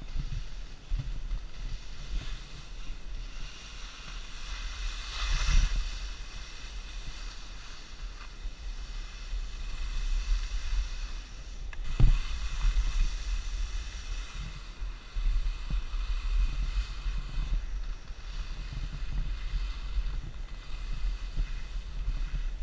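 Wind buffeting the microphone over the hiss and scrape of skis sliding on snow during a downhill run. The ski hiss swells about five seconds in, and there is one sharp knock about twelve seconds in.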